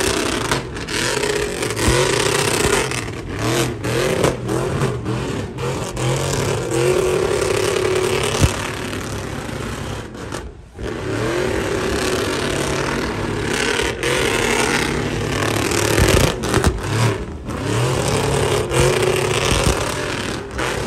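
Chevrolet Silverado pickup doing burnout donuts: the engine is held at high revs in repeated pulls that rise and fall, over the hiss of the rear tyres spinning on the asphalt. The revs briefly drop about ten seconds in, then pick up again.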